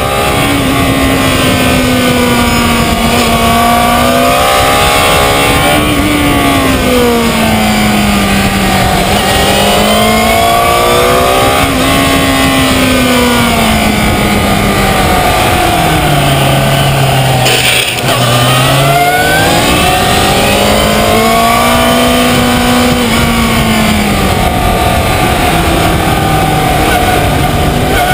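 Yamaha FZ6 Fazer's inline-four engine at racing speed, its pitch climbing and falling again and again as the rider accelerates, shifts and eases off for corners, with a lower, steadier stretch a little past halfway. Heavy wind and road noise on the low-mounted camera runs under it.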